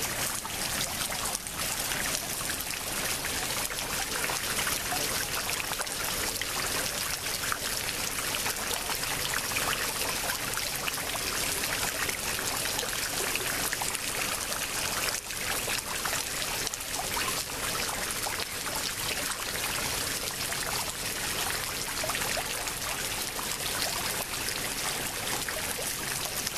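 Floodwater flowing steadily: an even, unbroken water noise that holds the same level throughout.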